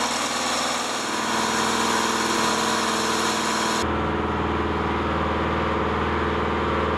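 Upright electric air compressor with a cast-iron pump, 5 HP and 170 PSI rated, running steadily as it fills its tank. About four seconds in the sound turns duller, with a stronger low hum.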